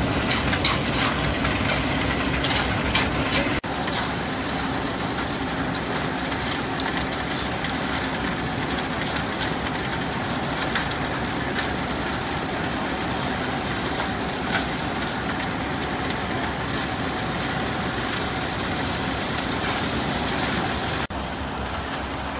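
Concrete pump truck's engine running steadily while it pumps concrete out through the boom hose. The sound changes abruptly about three and a half seconds in and again near the end.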